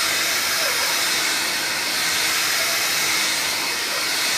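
Vax Air cordless vacuum cleaner running steadily with its motorised brush roll fitted, a constant rushing noise from the motor and airflow.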